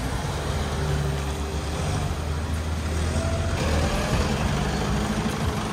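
SUV engine running at low revs as the vehicle crawls past close by on a rough dirt track.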